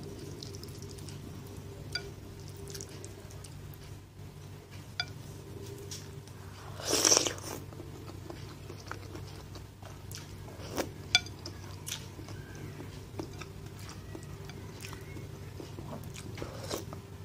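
Eating a bowl of instant noodle soup: one loud slurp of noodles about seven seconds in, chewing, and a few light clicks of wooden utensils against the bowl, over a steady low hum.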